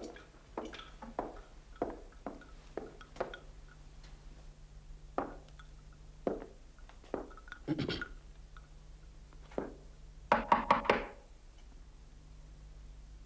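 Footsteps on a hard floor, then four loud, quick knocks on a wooden door a little after ten seconds in.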